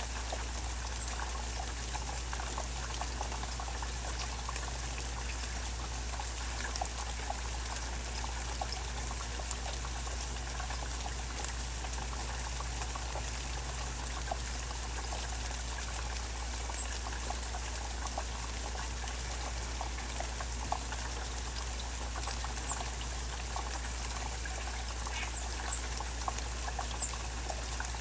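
Steady rain falling and dripping, with many small drops ticking and water trickling. A few faint high chirps come through in the second half.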